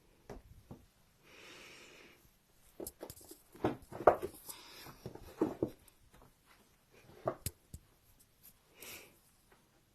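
Handling sounds of quilting fabric and small tools: a soft fabric rustle, then scattered light knocks and clicks, loudest about four seconds in.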